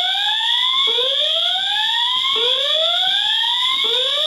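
Fire alarm voice-evacuation speaker sounding a whoop alert tone: a rising sweep repeated about every one and a half seconds, over a steady high-pitched tone. This is the alert signal that alternates with the recorded evacuation message.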